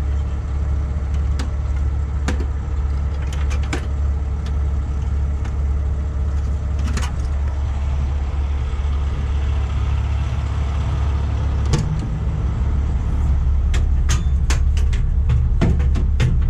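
Heavy tow truck's diesel engine idling with a steady low hum, its note shifting slightly about twelve seconds in. Over it come sharp metallic clicks and clanks: an aluminium step ladder being folded at the start, and equipment being handled in a metal compartment, more often near the end.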